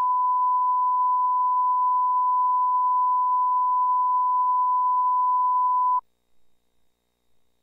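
Broadcast line-up reference tone, a steady pure 1 kHz sine tone played with colour bars for setting audio levels, cutting off abruptly about six seconds in.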